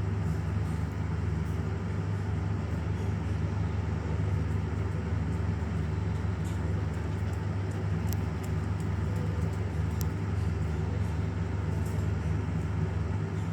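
Steady low mechanical hum, with a few faint light clicks in the second half.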